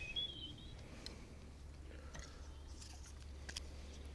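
Faint, scattered clicks of fishing tackle being handled as a pike float rig is worked on, over a low steady hum.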